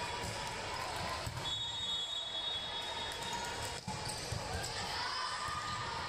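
Volleyball gym sounds: a ball thumping at irregular intervals over a constant murmur of voices echoing in a large hall.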